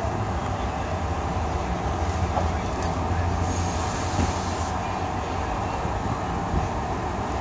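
A car's steady running noise: a constant low rumble under an even hiss, with a few faint ticks.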